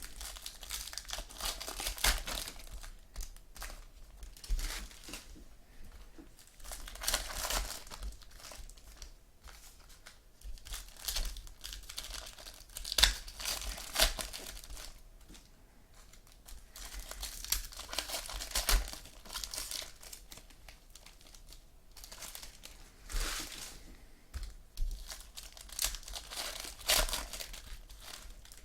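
Plastic wrappers of 2015 Diamond Kings baseball card packs crinkling as they are torn open and handled, in irregular bursts with short quiet gaps between them.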